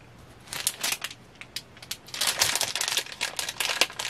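Plastic packaging crinkling and crackling as it is handled, sparse at first and getting busier from about two seconds in.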